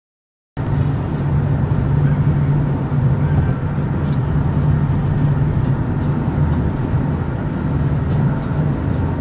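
Steady low drone of a car's engine and tyres heard from inside the cabin while driving at freeway speed; it cuts in suddenly about half a second in.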